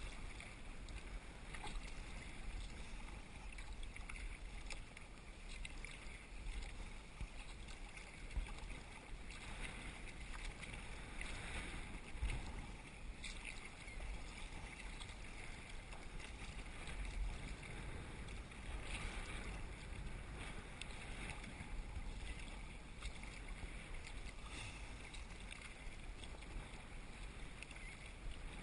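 Kayak paddle strokes dipping and splashing, alternating side to side, with water lapping against the sea kayak's hull and wind rumbling on the microphone.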